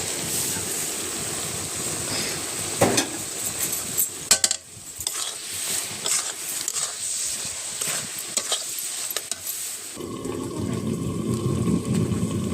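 Stirring in a cooking pan over a sizzle, with a few sharp clinks of a utensil. About ten seconds in it gives way to a steadier, fuller rushing noise.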